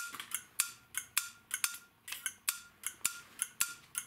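Turn-signal flasher relay of a 1985 Honda Elite 150 scooter clicking steadily as the rear turn signal flashes, about three to four sharp clicks a second, each with a brief ring.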